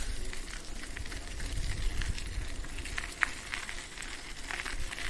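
Bicycle being ridden over rough ground: steady rolling noise with a low rumble and scattered light clicks and rattles from the bike.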